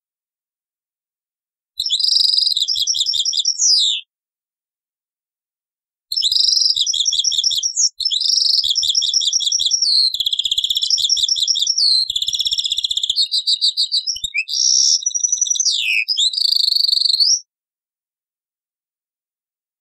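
European goldfinch song: a short burst of fast, high twittering about two seconds in, then after a pause a long run of rapid trills, buzzy notes and a few falling slurs, ending a couple of seconds before the close, with complete silence between the passages.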